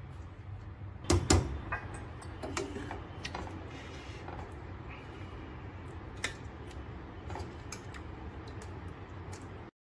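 A ladle knocking and scraping against a stainless steel pan and a ceramic serving dish as curry is scooped out: a few sharp clinks about a second in, then scattered lighter clicks, over a steady low hum. The sound cuts off just before the end.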